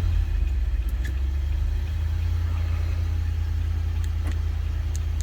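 2021 Nissan Armada's 5.6-litre V8 idling steadily just after starting, a low, even rumble. It started from the push button with a newly programmed smart key, a sign that the key has been accepted by the immobilizer.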